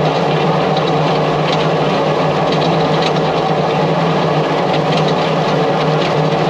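A tractor engine running steadily under even load, with a low hum and a faint light rattle over it.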